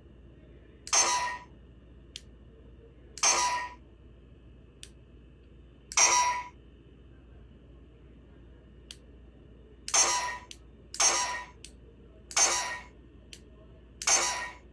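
Handmade Juggler GOGO! lamp box playing its short 'gako!' sound effect seven times as its switch is flipped on, each followed by a faint click of the switch going off.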